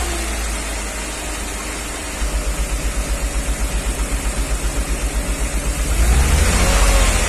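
Mercedes G320 engine running with its intake off, held at a steady speed while the mechanic hunts for a deep knock that he suspects is a piston or wrist pin. From about two seconds in the sound pulses at about six or seven beats a second, and about six seconds in the revs rise and it gets louder.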